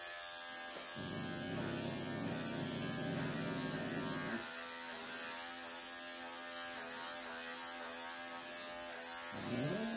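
Wahl electric pet clipper running steadily with a constant motor hum as it is worked through a Siberian forest cat's matted, pelted coat. A lower, rougher sound joins it from about a second in until about four and a half seconds in.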